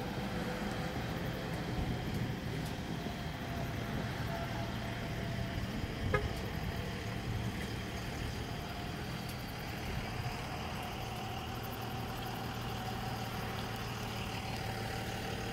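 Steady low rumble of road traffic and vehicle engines, with faint humming tones and a single short click about six seconds in.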